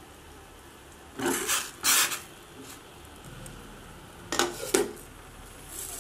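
A glass pot lid with a steel rim being handled and set onto a stainless-steel pot, scraping and clinking against the rim in two bursts, about a second in and again about four and a half seconds in.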